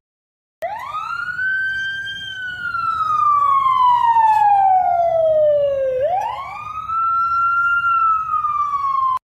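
A siren-like wailing tone run through a Doppler pitch-shift effect. Twice, its pitch rises quickly and then glides slowly down, like a vehicle passing by. It cuts off abruptly near the end.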